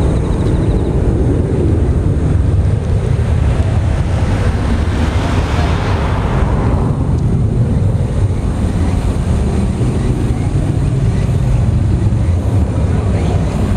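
Jet noise from a climbing Boeing 737-500 and its two CFM56-3 turbofans: a steady low rumble, with a brief swell of hiss near the middle.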